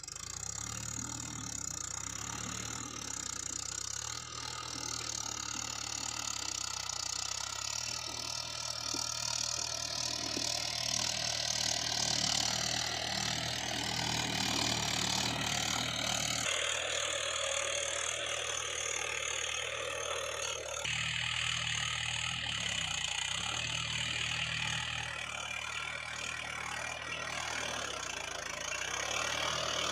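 Mahindra 575 DI tractor's diesel engine running steadily at an even speed. The sound changes abruptly twice, about sixteen and twenty-one seconds in.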